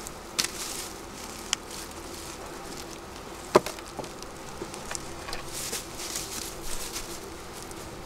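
Honeybees buzzing steadily around an open hive, with scattered clicks and rustles and one sharp knock about three and a half seconds in.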